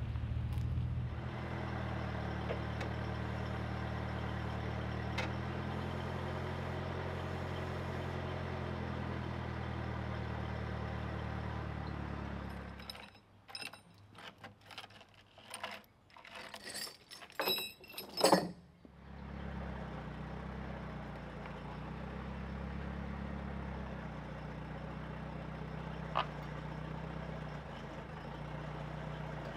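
An engine idling steadily. The idle stops about 13 seconds in and is replaced by several seconds of clicks and knocks with one loud metallic clank. The steady idle then returns.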